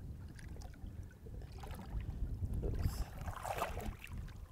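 Water splashing around a small tarpon held at the surface by its jaw for release, with a louder splash about three seconds in, over a low steady rumble.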